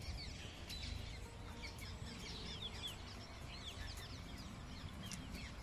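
Several small birds chirping: many short, quick falling notes, over a low steady rumble.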